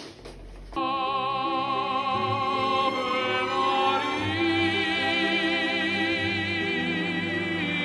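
Operatic singing with classical accompaniment, starting suddenly about a second in, the singer's voice wavering in a wide vibrato.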